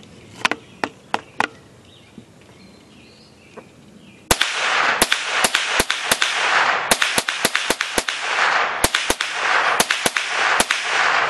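Series of .22 rifle shots: a few sharp cracks in the first second and a half, then a rapid string of cracks from about four seconds in. A loud, even hiss comes in suddenly with that string and runs under it.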